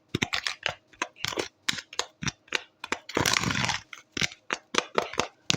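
Kitchen handling sounds: a quick, irregular run of clicks and knocks from utensils and containers being moved, with a longer rustle or scrape a little past three seconds in.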